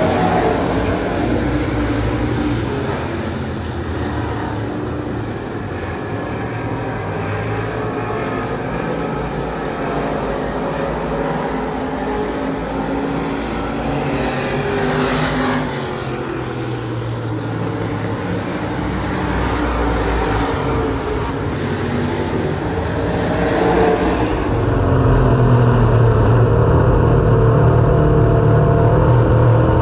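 Pure Stock race cars' engines racing on a dirt oval, heard from the grandstand and rising and falling in pitch as the cars pass. About 25 s in it switches to one race car's engine heard from inside its own cockpit at racing speed, louder and deeper.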